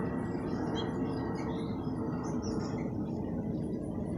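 Outdoor ambience: a steady hiss and rumble with faint bird chirps scattered through it.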